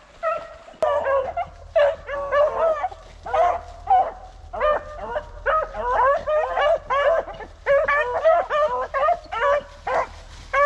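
A pack of beagles baying on a rabbit's trail in a hunt. Their repeated calls overlap without a break.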